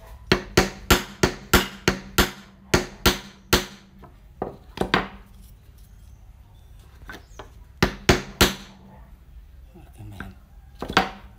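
Hammer tapping small wooden pegs into holes in a wooden dowel: a quick run of about a dozen sharp taps, a few more in two short groups, and a single tap near the end.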